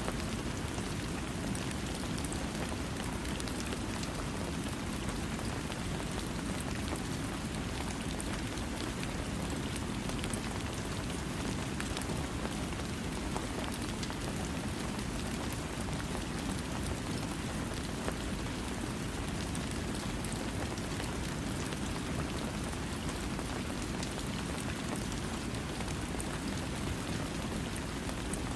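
Steady rain falling, with a dense patter of drops over a low, even rush. There is no thunder.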